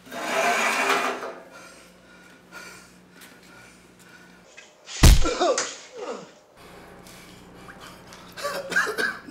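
A man gasping and groaning in pain, with one sharp smacking blow, like a slap or punch, about five seconds in, followed by a falling pained cry.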